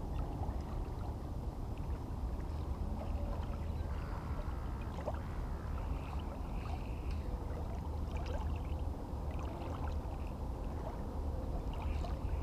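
Small waves lapping at the water's edge with steady wind noise on the microphone, and faint scattered ticks from a spinning reel as a blade lure is slowly wound in.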